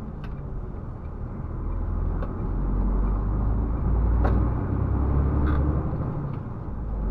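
A MAN TGX 470 truck's diesel engine rumbling low under load as the truck manoeuvres, heard inside the cab. It grows louder about two seconds in and eases off near the end, with a few faint clicks over it.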